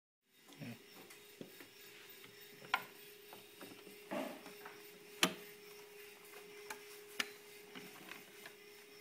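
Faint clicks, knocks and rubbing of a paper piano roll being fitted into a pianola's spool box and its leader hooked onto the take-up spool, with three sharp clicks standing out. A faint steady hum sits underneath.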